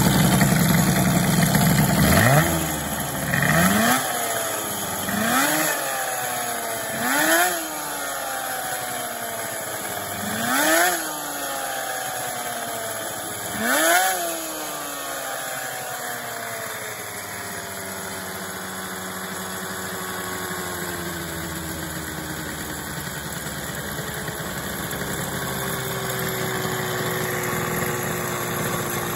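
Custom twin-cylinder 100 cc two-stroke engine of an MBK 51 moped idling, then revved in six quick throttle blips, each rising sharply and falling back. After that it settles into a steady idle that slowly drops in pitch.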